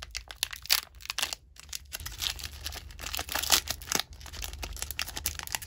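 Foil trading-card booster pack wrapper being torn open and crinkled in the hands, a dense run of sharp crackling rustles.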